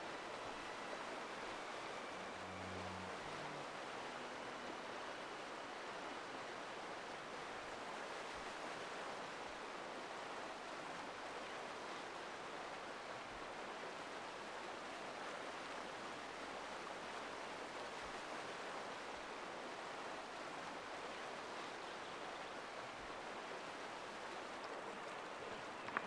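A fast-flowing river rushing, a steady even noise of churning water.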